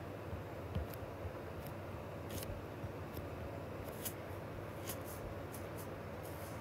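A stylus tapping on a tablet's glass screen while digits are handwritten: scattered light clicks at an uneven pace over a steady low hum.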